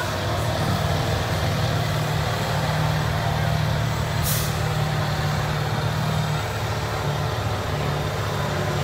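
Pickup truck engine running under load as it drags a weight-transfer pulling sled, a steady low drone. A short hiss comes about four seconds in.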